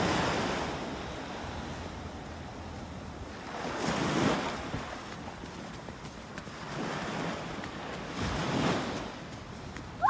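Surf washing on a beach with wind buffeting the microphone, a steady rush that swells three times: about four, seven and eight and a half seconds in.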